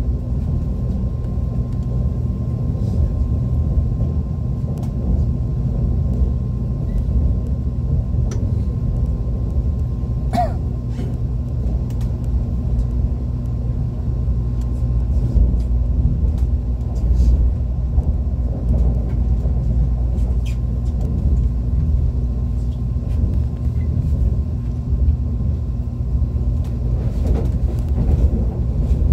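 ITX-Maum electric multiple-unit train running: a steady low rumble of wheels on the track, with a thin constant tone above it and scattered sharp clicks, and a brief squeal about ten seconds in.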